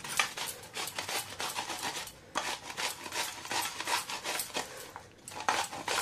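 Peeled cucumber grated by hand on a round, medium-hole stainless steel grater set in a steel plate: quick rasping strokes, about four to five a second, with short breaks about two seconds in and near five seconds.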